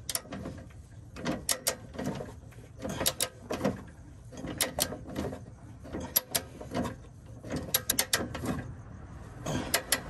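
Ratchet of a hand torque wrench clicking in short runs as it is swung back and forth, tightening a tow hitch mounting bolt toward 65 lb-ft. There are sharp clicks in small groups, a couple of times a second.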